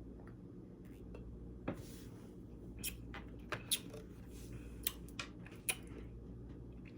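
A person drinking soda: a handful of quiet, sharp swallowing and lip clicks spread irregularly over several seconds, above a steady low hum.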